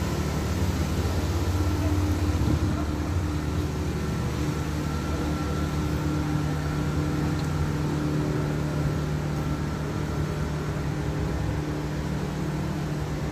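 Steady low mechanical hum with a few faint steady tones, a little louder around two seconds in.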